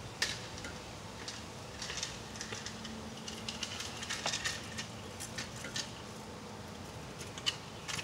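Northern cardinal nestlings begging as a parent feeds them: an irregular series of short, high-pitched chips and ticks, thickest around the middle.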